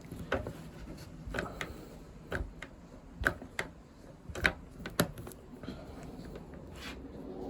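Irregular sharp clicks, taps and knocks of hand work with a glazing tool, fitting window glass into its rubber seal in a steel-framed side panel. The loudest clicks come about halfway through.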